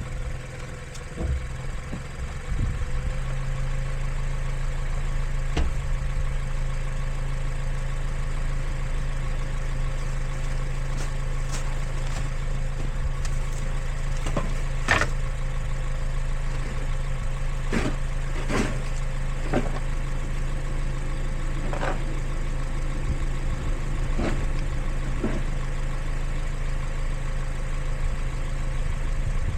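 Steady car engine and cabin hum, with a few scattered sharp clicks or knocks through the middle of the stretch.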